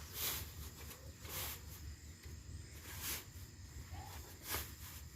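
Four short rustling, scraping handling noises, each about a second or more apart, as plastic costume parts and tubing are worked into place, over a steady low outdoor rumble.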